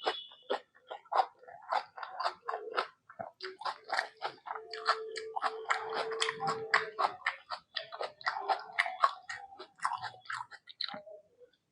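Close-miked eating sounds: rapid wet chewing, smacking and crunching of mouthfuls of rice with mutton and egg curry. A low steady hum joins for a couple of seconds in the middle.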